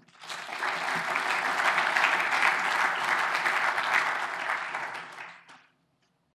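Audience applauding, building up over the first second and fading out about five and a half seconds in.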